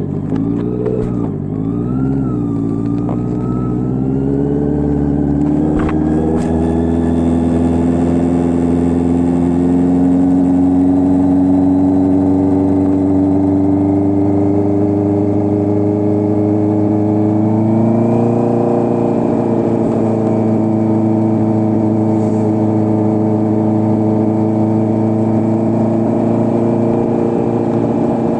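Honda CB650R's inline-four engine running through an SC Project full exhaust system. The note wavers up and down over the first few seconds, then settles into a steady drone that climbs slowly in pitch and steps up about two thirds of the way through.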